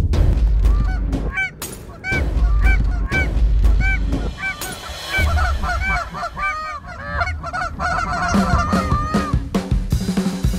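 A flock of Canada geese honking: many short, overlapping calls that grow busier about halfway through, over a low rumble.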